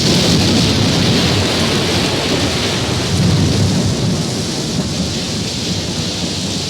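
Rain-and-thunder sound effect: a steady heavy downpour hiss over a low, rolling thunder rumble that swells about three seconds in and then eases slightly.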